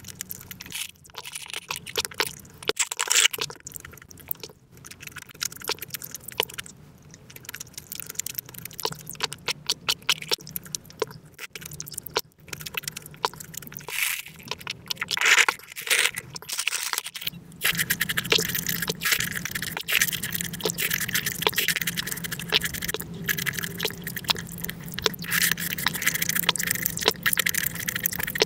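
ASMR eating sounds sped up about five times: fast, dense smacking, chewing and wet mouth noises as fruit mochi and boba tea are eaten and drunk through a straw. About two-thirds through this gives way to denser, steadier chewing of juicy watermelon.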